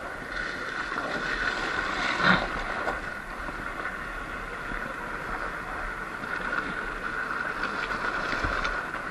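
Sur-Ron Light Bee X electric dirt bike riding along a rough desert dirt road: a steady high whine from the electric drive over wind and tyre noise. A single knock about two seconds in, as the bike hits a bump or rock.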